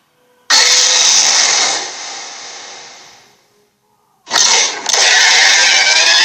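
Two harsh, rasping monster roars made as sound effects for the Lochnessgator, an imaginary creature. The first comes about half a second in and trails off; the second starts around four seconds in, breaks briefly, and cuts off near the end.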